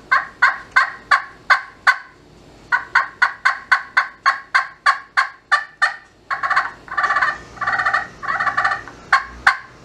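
Homemade wooden pot-style turkey call with a copper soundboard, played with a wooden striker on its newly glued-in surface as a first test. It gives two runs of short, evenly spaced yelps, about three a second, then several longer, rattling notes near the end.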